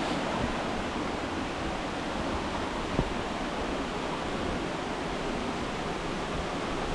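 Steady rush of a waterfall, an even noise that does not let up, with a single thump about three seconds in.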